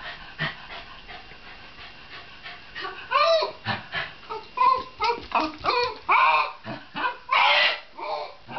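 A Shiba Inu vocalizing in a quick string of short whines and yips that bend in pitch, starting about three seconds in. Two louder, harsher cries come near the end.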